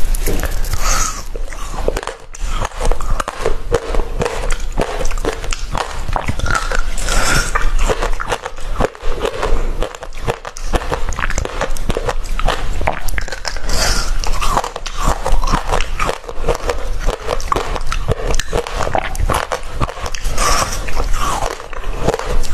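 Biting and chewing frozen basil-seed ice: a dense run of crackling crunches, with harder bites coming every few seconds.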